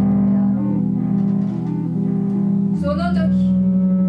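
Bass guitar playing a sustained low note with shifting notes above it. About three seconds in, a short wavering, sliding phrase sounds higher up.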